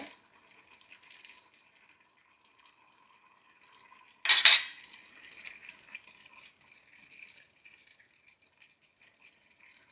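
A single loud metallic clink of a stainless steel ladle being set down, about four seconds in, with a short ring. Around it only a faint steady high whine.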